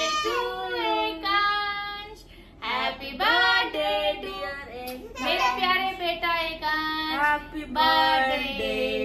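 Singing in high, child-like voices, with a short break about two and a half seconds in.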